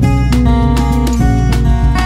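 Background music with strummed acoustic guitar chords.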